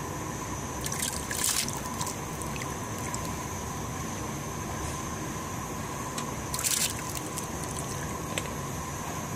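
A pot of water with lentils heating on a gas burner, coming to the boil: a steady hiss with two short bursts of bubbling, about a second and a half in and again near seven seconds.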